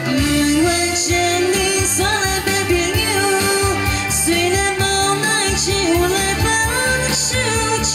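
Taiwanese-language pop song played loud through a PA: a woman singing into a handheld microphone over a backing track with a steady bass beat.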